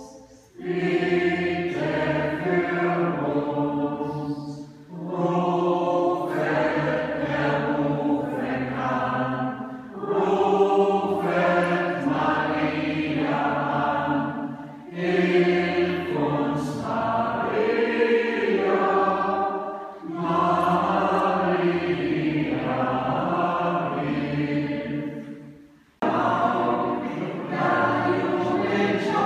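Mixed choir of men and women singing, in phrases of about five seconds with short breaks between them and a longer pause near the end.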